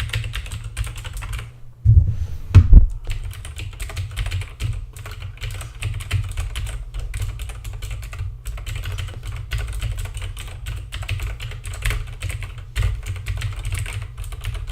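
Fast, continuous typing on a Razer mechanical keyboard with Razer switches: a dense stream of key clicks, with two heavier key strikes about two seconds in and a couple of brief pauses.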